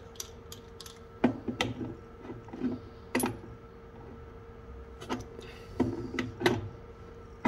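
Adjustable spanner clicking and knocking against a brass compression nut as it is fitted on and turned, a handful of sharp metallic clicks spread out, over a steady faint hum.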